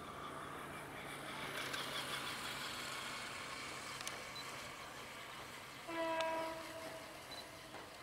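A vehicle horn sounds once about six seconds in, a single held note lasting under a second. Behind it runs a steady low hum with a rushing noise that swells in the first few seconds.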